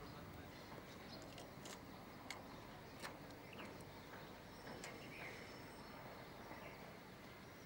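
Faint background ambience: a low steady hiss with a few scattered small clicks and faint brief chirps.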